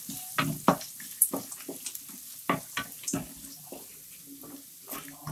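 Wooden spatula stirring and scraping sliced onions and dry red chillies frying in oil in a metal kadai, with a faint sizzle under the strokes. The scraping comes in irregular strokes, firmest in the first second or so and lighter after.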